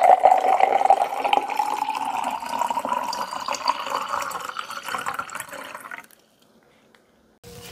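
Makgeolli poured in a steady stream from a metal kettle into a metal bowl, a splashing fill whose pitch rises as the bowl fills; the pour stops about six seconds in.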